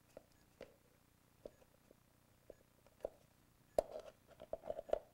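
Light clicks and taps of hand tools and small metal parts as the fuel line is worked off the petcock of a Honda CRF450R, scattered at first, then a quicker run of clicks and clinks near the end.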